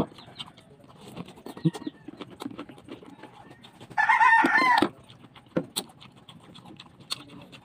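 A rooster crows once, briefly, about four seconds in, with a wavering pitch. Faint clicks of chewing and mouth noises run around it.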